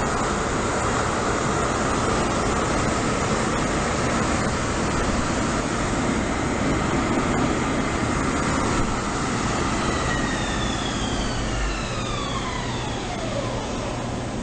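Doosan Puma 400LC CNC lathe spindle running steadily at its maximum 1,500 RPM in high gear, a loud even machine noise. Near the end a whine falls in pitch, as the spindle spins down.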